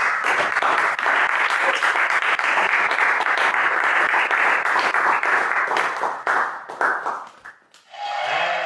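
Audience applauding, the clapping thinning to a few last scattered claps about seven seconds in and dying away. A short pitched sound begins near the end.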